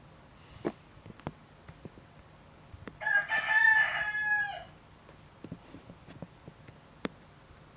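A rooster crowing once, a call of under two seconds starting about three seconds in and dropping in pitch at the end. A few short clicks and taps come before and after it.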